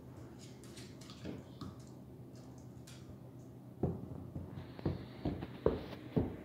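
Faint, scattered light clicks of a beagle's claws on a hardwood floor. From about four seconds in, a run of soft, irregular thumps of footsteps going down carpeted stairs, about two a second.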